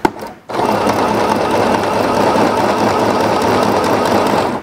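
Mini portable 505 sewing machine running steadily, sewing a straight-stitch test seam with its upper thread tension just raised to 7 to tighten loose stitches. A few short clicks come first, then the machine runs evenly for about four seconds and stops abruptly at the end.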